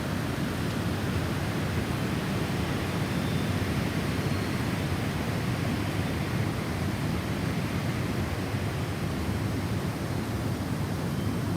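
Snowstorm wind blowing steadily as a low, even rush without distinct gusts, with a few faint, brief high wind-chime notes.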